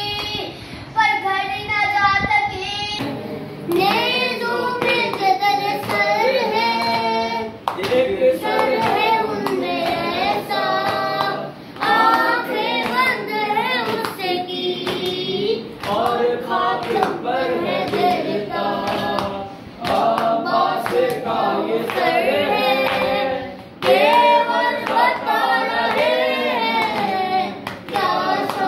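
Children's voices singing a noha, a Shia mourning lament, in lines with short breaks between them. Hands beat on chests in time with it (matam).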